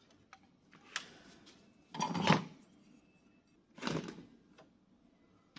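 Handling noises from working on an opened inverter welding machine: a sharp click about a second in, a louder clatter of parts or tools around two seconds, and a shorter one near four seconds.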